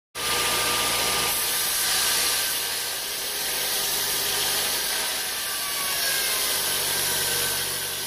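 Band sawmill blade cutting lengthwise through a teak log, giving a steady sawing noise over the hum of the mill's running motor.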